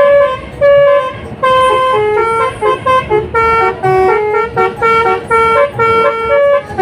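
A bus's telolet musical horn playing a quick tune, its notes short and stepping up and down in pitch with brief gaps between them.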